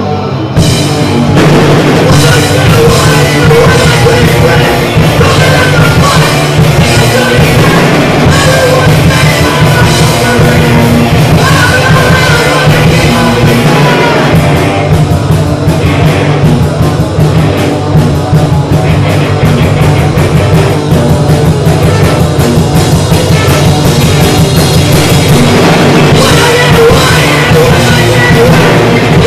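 Punk rock band playing live and loud: electric guitars, bass and drum kit, with the full band crashing in about half a second in.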